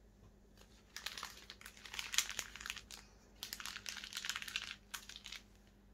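Thin clear plastic packaging film crinkling as it is handled, in two bursts of about two seconds each.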